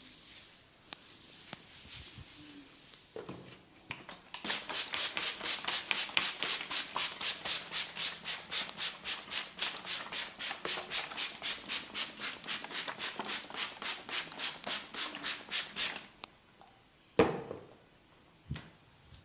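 A barber's hands rubbing briskly back and forth over the head during a massage, in an even rhythm of about four strokes a second that stops suddenly. Two sharp clicks follow near the end.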